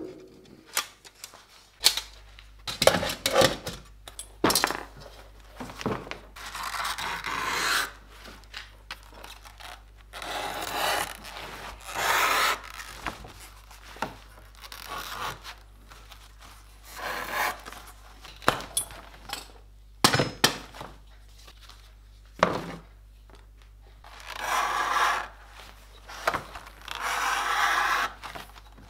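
Slow, repeated hand strokes of rough rubbing or scraping over a workpiece, each lasting about a second or two, with short pauses and several sharp knocks in between.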